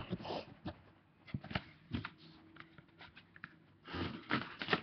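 Vinyl LP records and their cardboard album jackets being handled: scattered light rustles and clicks, with a louder rustle of card near the end.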